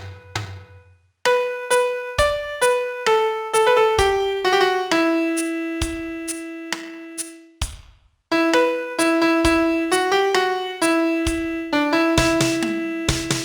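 Piano playing a song melody one note at a time, each note struck and fading, with a few low bass notes; it breaks off briefly about a second in and again about eight seconds in, between phrases.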